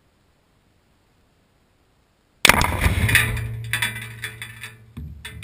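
Explosion on the ground: a sudden loud blast about two and a half seconds in, with a low rumble dying away over the next two seconds. A few sharp knocks follow near the end.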